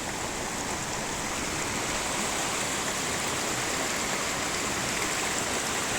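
Waterfall and its stream rushing, a steady, unbroken sound of falling water.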